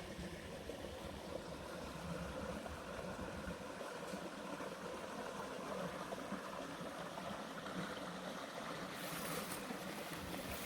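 Canyon stream running steadily over its rocky bed, a continuous rushing of water. A short burst of hiss near the end.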